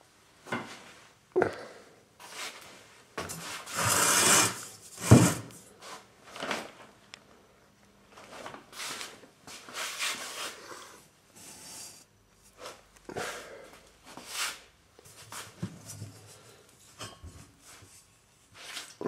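Irregular rubbing and scraping handling noises, loudest in a longer scrape about four seconds in and a sharp knock just after five seconds. There is no steady machine hum.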